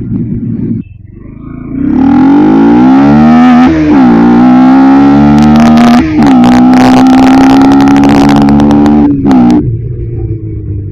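Bajaj Pulsar NS160's single-cylinder engine accelerating hard. The pitch climbs, drops briefly at two upshifts, then holds steady at high revs until the throttle is closed near the end.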